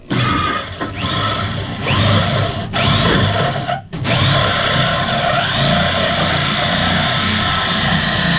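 Electric drill running a 3 1/8 inch hole saw into a fiberglass boat hard top. It starts slowly with a few short spin-ups, the motor whine rising each time, stops briefly about four seconds in, then cuts steadily.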